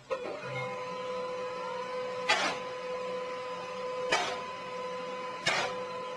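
A small machine running with a steady whine, broken by three sharp clacks spaced between one and two seconds apart.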